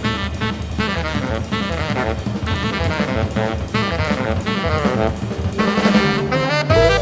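Uptempo jazz: a saxophone plays fast, quickly changing lines over a drum kit with cymbals and a bass.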